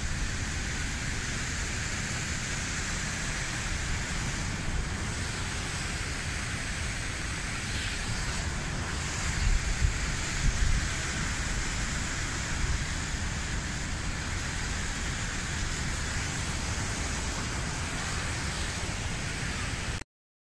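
Steady rushing of a mountain stream flowing over rocks, with a few low bumps on the microphone about halfway through.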